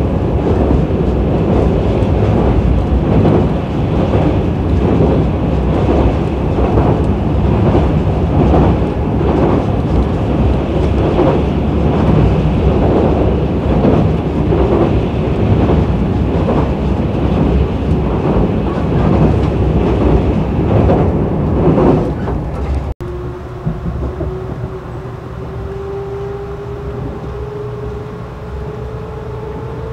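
Inside a Tobu limited express Ryōmō train running at speed: a loud, steady rumble with regular clatter from the wheels as it crosses a long steel truss bridge. After an abrupt cut about 23 seconds in, the running is quieter and a motor whine rises steadily in pitch as the train accelerates away from a station.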